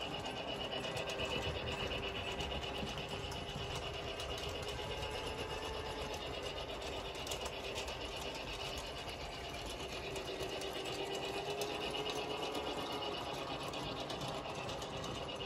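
Battery-powered toy train running around a plastic track: a steady small-motor whir with a fine rapid ticking.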